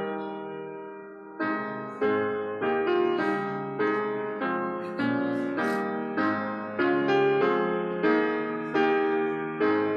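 Piano or electric piano playing a series of chords, each struck and left to decay, after a held chord and a short pause near the start: the hymn introduction before the congregation begins to sing.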